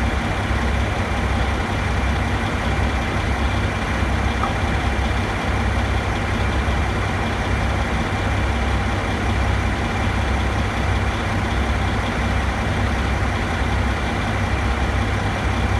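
A heavy construction-machinery engine idling steadily, a constant low rumble that does not change.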